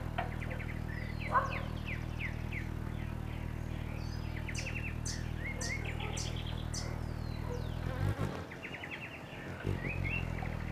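Forest birdsong: many short chirps, downward-sweeping whistled notes and rapid trills from birds, over a steady low buzzing hum that breaks off for a moment about eight seconds in.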